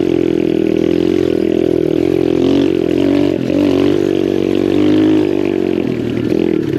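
Lifan 125 single-cylinder four-stroke engine of a pit bike running under way, its pitch wavering slightly as the throttle changes, with a brief dip a little past halfway before it picks up again.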